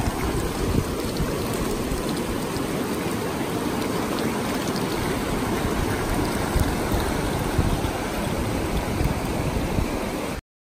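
Shallow river rapids rushing over rocks and cobbles: a steady, full rush of water that cuts off abruptly just before the end.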